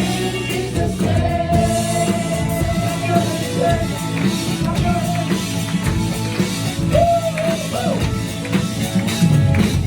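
Worship band music: a voice holds long sung notes over the band, with drums and guitar in the mix.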